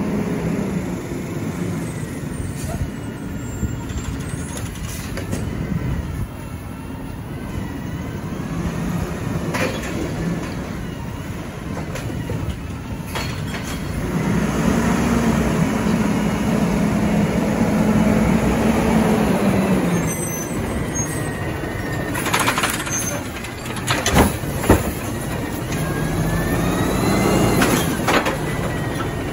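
McNeilus AutoReach automated side-loader garbage truck's diesel engine running as it drives up and stops, with sharp bursts of air-brake hiss and knocks about two-thirds through. Near the end the engine revs with a rising whine as the hydraulic arm lifts a cart to dump it.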